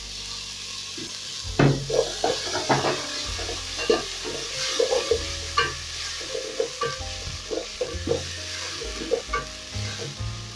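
Wooden spoon scraping and knocking against an aluminium pot as an onion and tomato-paste base with coriander stems is stirred, over a steady sizzle of frying in oil. The brisk stirring strokes start about a second and a half in.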